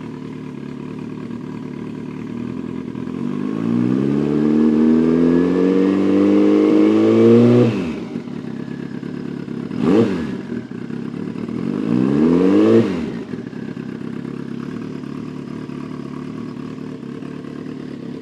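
Turbocharged 2022 Kawasaki ZX-14 inline-four motorcycle engine idling and revved three times: a slow climb held for several seconds that drops back sharply, a short quick blip, then a second shorter climb, each falling back to idle.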